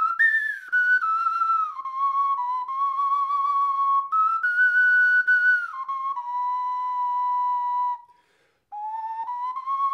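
A roughly 100-year-old Charles Mathieu 10-hole ocarina of nickel-plated metal playing a slow melody of held notes, with an airy tone. The melody breaks off briefly about eight seconds in, then goes on.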